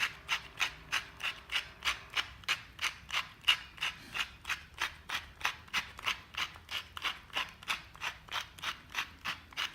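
Pepper mill grinding black pepper, an even run of short rasping crunches at about four strokes a second.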